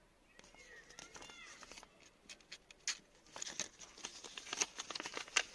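Small paper instruction leaflet being handled and unfolded: crinkling and crackling, loudest over the last two and a half seconds. A few short, high chirps sound about a second in.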